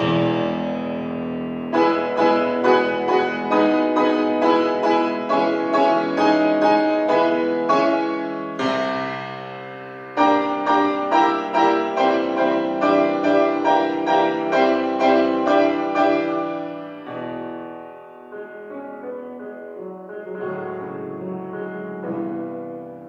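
Grand piano being played: strongly accented notes or chords repeating about twice a second, a brief break, then a loud re-entry about ten seconds in with the same driving pulse. The playing grows softer and quieter for the last several seconds.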